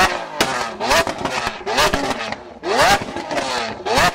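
Lamborghini Aventador S V12 on a straight-piped Capristo exhaust, revved in quick repeated throttle blips. Each blip is a sharp rising rev broken by loud exhaust cracks and pops as the exhaust shoots flames.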